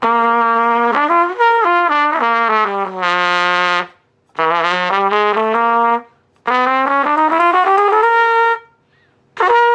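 Used Bundy cornet played in four short phrases of held and moving notes, with brief breaks between them. It is a quick playing test, and the instrument plays all right.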